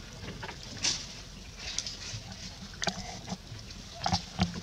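Scattered light rustles and clicks of leaves as a baby macaque tugs at and chews a leafy twig, with a few sharper crackles about a second in, near three seconds and near the end.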